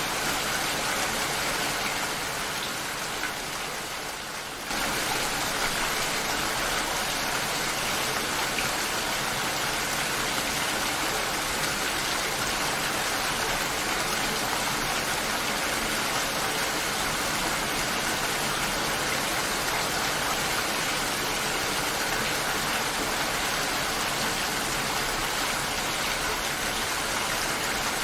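Steady heavy rain, an even hiss of falling water. It fades a little over a couple of seconds early on, then comes back at full strength abruptly about five seconds in.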